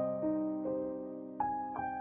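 Slow, gentle background piano music: single notes and chords struck every half second or so, each left to ring and fade.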